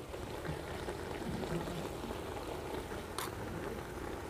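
Potato and aubergine curry simmering in a wok, a steady soft bubbling, with one light click about three seconds in.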